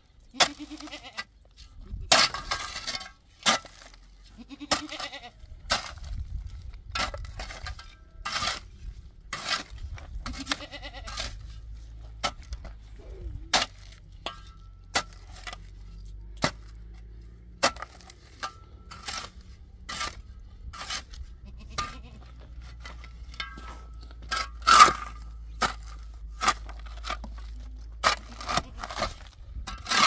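Goats bleating a few short times, over an irregular run of sharp clicks and knocks.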